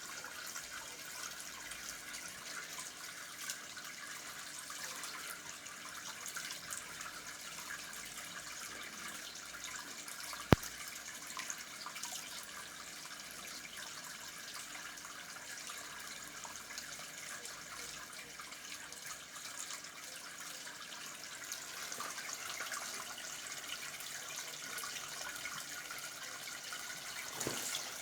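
Water from a portable fiberglass ornamental pond's waterfall splashing steadily into its basin. There is one sharp click about ten seconds in.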